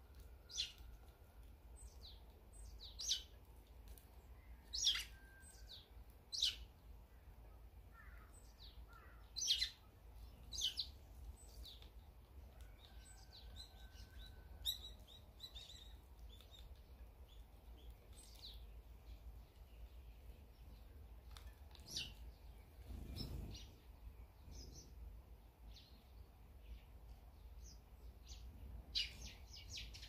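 Eurasian tree sparrows chirping: short, sharp, falling chirps, scattered irregularly, some single and some in quick runs.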